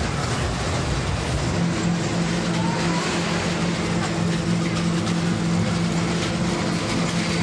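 Small steel roller coaster running, its cars rolling along the track amid steady fairground noise, with a steady low hum setting in about one and a half seconds in.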